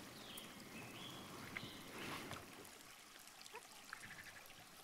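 Quiet lakeside forest ambience: a faint steady hiss, with a few faint high whistled notes in the first couple of seconds and some faint scattered ticks.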